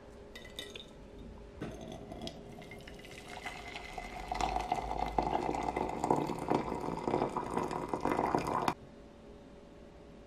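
Tea poured into a glass cup: a light glass clink at the start, then a steady pour that gets louder midway and cuts off abruptly near the end.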